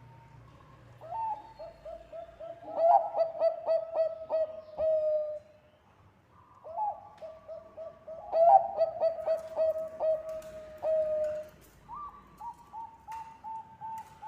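Zebra dove (Bangkok-type perkutut) singing its cooing song twice. Each phrase opens on a higher note, runs into a fast string of short staccato coos and ends in one long drawn-out note. A third, higher-pitched phrase starts near the end.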